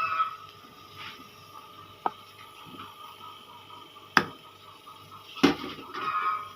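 Sharp knocks and brief clatter of kitchen utensils against cookware while noodles are being cooked: three separate knocks, the loudest two about four and five and a half seconds in, over a faint steady hum.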